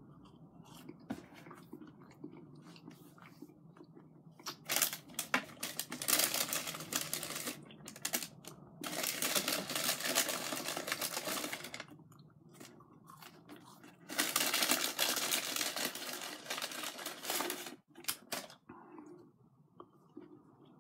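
Close-up chewing of crispy chicken nuggets and fries: crunching in three loud stretches of a few seconds each, with quieter mouth sounds between.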